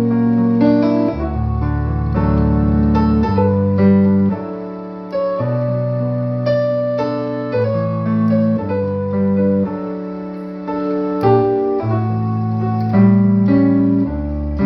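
Keyboard playing slow, held chords that change about once a second, with no singing.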